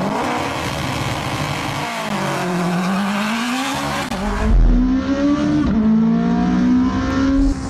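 Turbocharged Honda K20 four-cylinder in an all-wheel-drive RSX at full throttle on a drag-strip run: a dense, loud engine and exhaust noise at the start, then the engine note climbing, dropping back at an upshift and climbing again. The second half is heard from inside the cabin, with a heavy low thump about four and a half seconds in.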